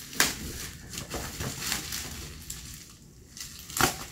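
Scissors snipping through thick plastic parcel wrapping, with the plastic crinkling between cuts. Sharp snips come at irregular moments, the loudest about a fifth of a second in and again just before the end.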